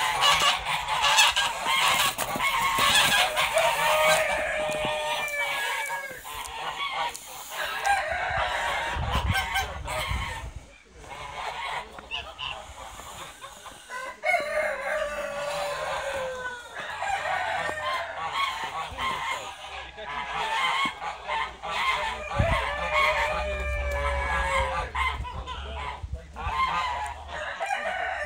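Domestic grey geese honking over and over in loud bouts, with chickens clucking among them. About ten seconds in, the calling eases for a few seconds, then picks up again.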